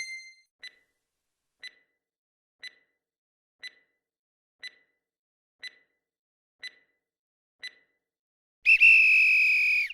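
Quiz countdown-timer sound effect: eight short ticks, one a second, then a loud electronic buzzer tone of about a second near the end, signalling that time is up.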